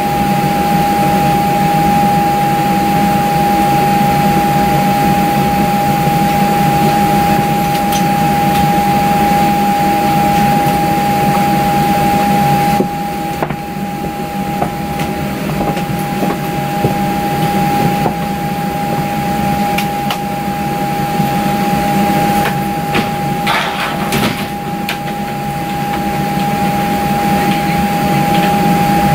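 Steady cabin air and equipment noise inside a parked Boeing 737, with one constant high whine. A few light knocks and rustles come as bags are handled.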